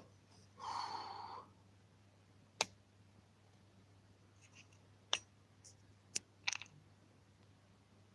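A brief breathy noise lasting about a second, then four sharp clicks spread over the next few seconds, in a small room.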